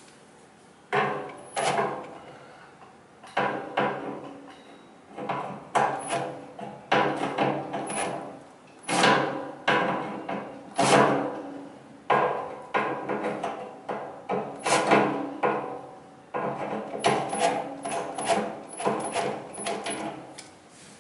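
Cordless drill/driver tightening the screws of a garbage disposal's three-bolt sink mounting assembly: repeated short runs of driving, each with sudden metal clanks and ringing from the mounting ring.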